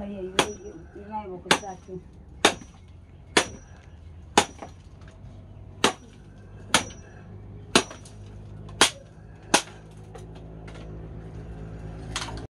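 Chopping with a metal blade: about a dozen sharp strokes roughly a second apart, several leaving a brief high metallic ring. A woman's voice sounds over the first couple of seconds.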